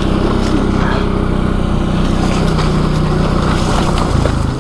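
ATV engine running steadily under way, its pitch dropping a little about four seconds in as it eases off.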